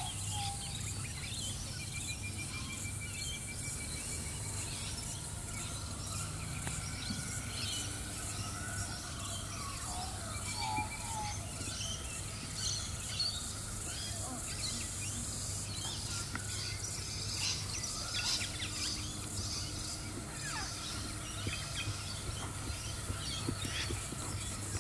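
Many birds chirping and calling, including a short rapid trill, over a steady high hiss and a low hum.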